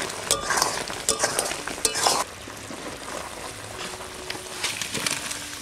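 Long metal spatula scraping and stirring thick, sizzling amla pickle in a metal karahi for about two seconds. Then the sound drops to a quieter sizzle, with a few light metal knocks near the end.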